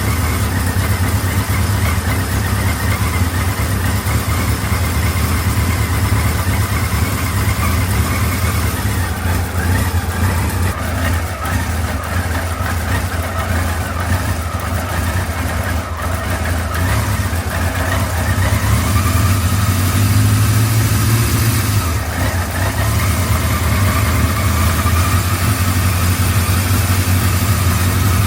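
Kawasaki KZ1000 MK2's air-cooled inline-four engine idling steadily, with the clattering (kacha-kacha) that the owner traces to a cam chain tensioner in need of adjustment.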